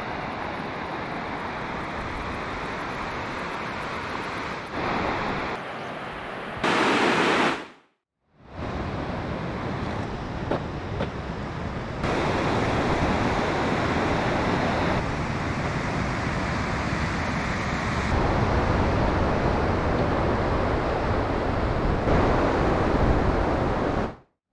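Steady rushing outdoor noise, spliced from several short clips so that its level jumps at each cut. There is a louder rush about seven seconds in and a brief dropout to silence near eight seconds.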